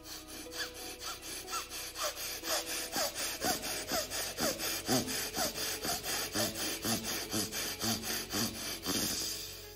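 A man breathing rapidly and forcefully through one nostril, the other held shut with a finger, in alternate-nostril pranayama: short, sharp breaths at about four a second that stop near the end.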